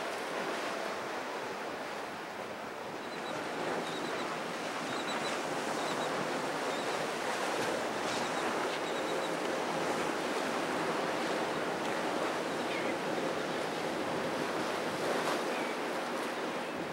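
Surf and choppy water washing at an ocean inlet, with wind buffeting the microphone. Under it a boat's outboard engine drones faintly as boats run past at speed.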